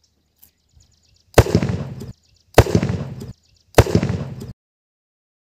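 Homemade carbide cannon, a large pipe gun fired by igniting acetylene from calcium carbide, going off with three loud bangs a little over a second apart. Each bang trails off over most of a second.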